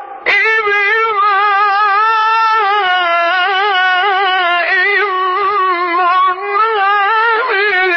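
Male Qur'an reciter chanting a long, high melismatic phrase, the held notes wavering in fine ornaments. The phrase starts just after a short pause at the very beginning and runs on with only brief catches.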